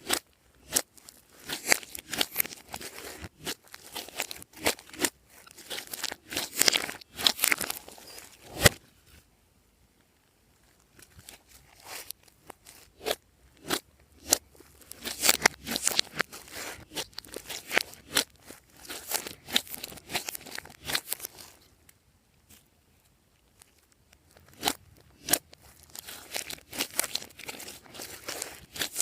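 Glossy slime being mixed, giving dense, irregular sticky clicks and crackles, broken by two quiet pauses of a second or two.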